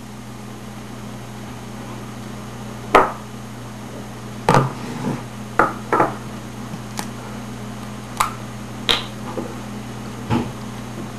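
Plastic measuring cup, spoon and bottle being handled and set down on a wooden table: a series of separate knocks and taps, the sharpest about three seconds in, over a steady low hum.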